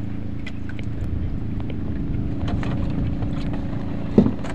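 Small engine of a wooden outrigger fishing boat running steadily with a low drone, and a single sharp knock near the end.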